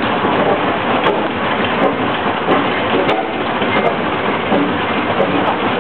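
Sawmill running with a steady, dense noise and no clear pitch.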